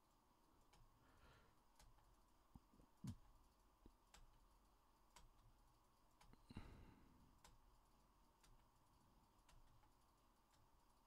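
Near silence with faint scattered clicks of a computer keyboard and mouse in use, and two soft thumps, about three seconds in and about six and a half seconds in.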